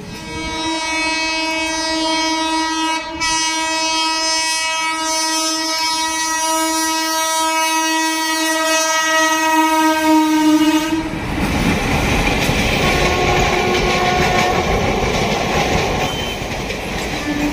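Indian Railways electric locomotive's horn held in one long, steady blast of about ten seconds. About eleven seconds in it gives way abruptly to the loud rumble and wheel clatter of a train running on the line.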